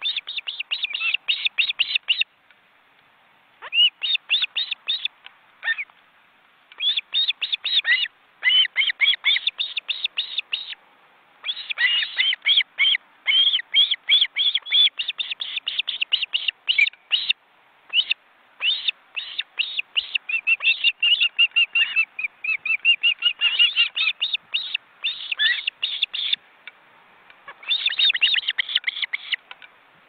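Ospreys calling at the nest: rapid runs of short, high whistled chirps, about ten a second, in bouts of one to three seconds with brief pauses between.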